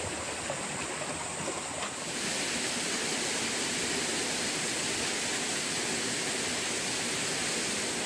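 Steady rushing of a waterfall, a little louder from about two seconds in.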